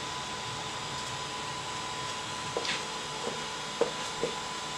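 3D printer running with its fans making a steady noise and a faint steady whine. In the second half come four short chirps from the stepper motors as the print head moves when the print is paused, the loudest about a second before the end.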